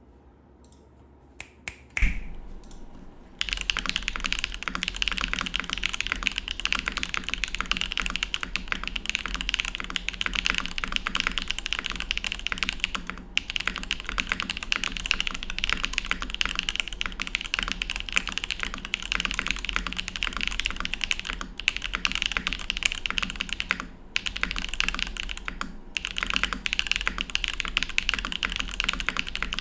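Steady, fast typing on a Neo80 mechanical keyboard with Gateron Baby Kangaroo tactile switches, GMK doubleshot keycaps and an aluminium plate with plate foam. It starts with a few scattered clicks and one sharp clack, then runs as a dense stream of keystrokes with a few short pauses; the uploader likens it to shaking an aerosol can.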